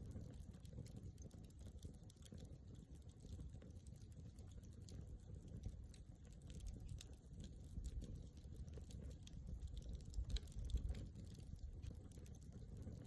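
Wood campfire crackling at normal speed: scattered small pops and snaps over a low rumble, with a few louder pops about ten seconds in.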